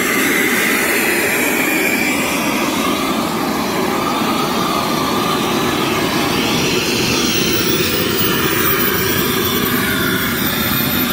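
K45G4 model turbine jet engine running steadily at idle on the ground, a loud even rush with a thin high whine above it.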